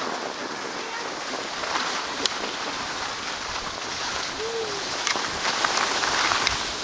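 Skis sliding on snow: a steady hiss, with a few light clicks and a short faint rising-and-falling tone about four and a half seconds in.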